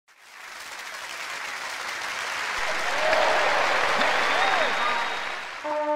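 Crowd applauding and cheering, swelling up from silence over the first few seconds, with a couple of short whoops. A brass fanfare starts just before the end.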